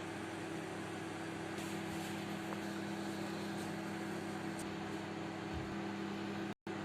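Microwave oven running while it cooks a pudding: a steady electrical hum with an even fan-like whir. It cuts out for an instant near the end.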